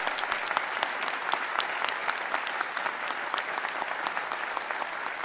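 Audience applauding, a dense spread of many hands clapping that slowly thins toward the end.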